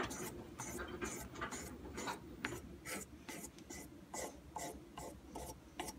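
Hand-held sharpening stick drawn back and forth along the edge of a curved spoon-carving gouge, honing the edge: quick short scrapes, about three a second.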